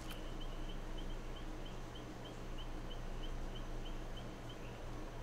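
Faint short high-pitched chirps repeating about four times a second, stopping near the end, over a low steady hum.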